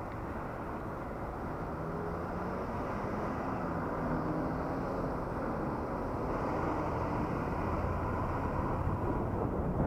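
Steady rush of wind and road noise picked up by a helmet-mounted action camera while riding, growing slowly louder.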